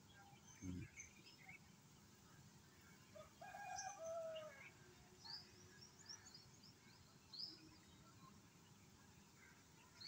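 Faint background birdsong of short high chirps, with a chicken's call of about a second starting about three and a half seconds in. A single low thump comes just under a second in.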